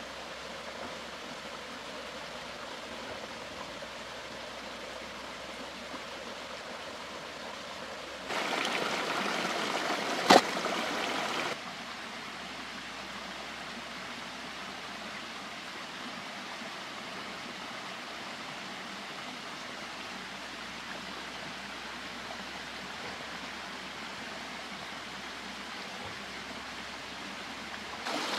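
Steady rushing of a flowing stream. For about three seconds in the middle the rush is louder, and one sharp click stands out in it.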